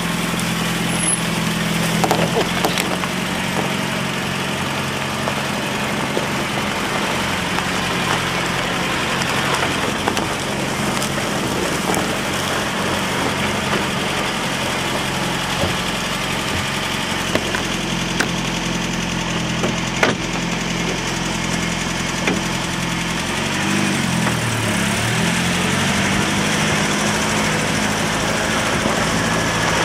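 Land Rover Series 109 engine running steadily as the vehicle drives off-road at low speed, with a few sharp knocks along the way. About three quarters of the way through, the engine note drops and then climbs back.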